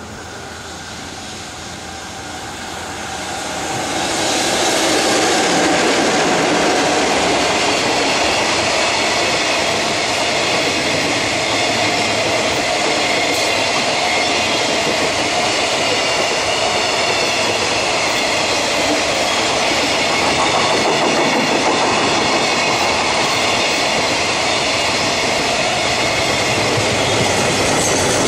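Freight train passing close by: an EF66 electric locomotive draws level, growing louder until about four seconds in, then a long string of Koki container flatcars rolls past with a steady rumble and clatter of wheels on the rails.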